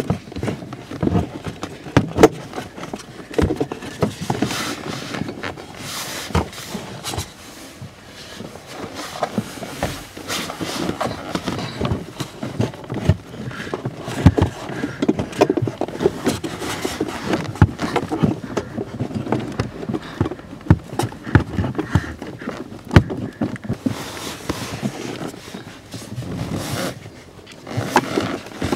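The hard plastic fuse box housing and its cover being handled and fitted back into place: irregular knocks, clicks and scraping of plastic on plastic.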